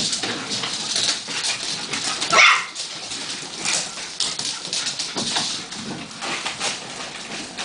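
Miniature schnauzer puppies playing with a crisp packet: the packet crinkles and rustles in quick crackles throughout, and a puppy gives one short, high yelp about two and a half seconds in.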